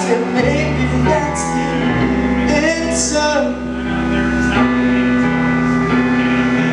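Live band music: a singer's voice over electric guitar and drums, with bass notes coming in about half a second in and a couple of cymbal crashes.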